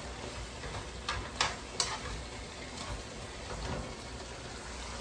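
Broccoli rabe and garlic sizzling in hot olive oil in a frying pan while being stirred, with three sharp clicks of the utensil against the pan about a second in.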